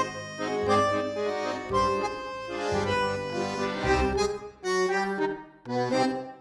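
Tango music carried by a bandoneón, its chords played in phrases that stop short several times.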